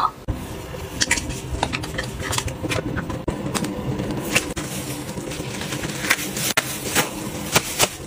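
Close handling sounds: irregular light taps and clicks of cosmetic containers and plastic packaging being picked up and handled, several a second.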